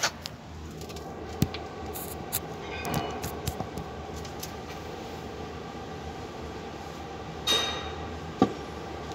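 A steady mechanical hum with several even tones, broken by a few sharp knocks and clinks; one about seven and a half seconds in rings briefly.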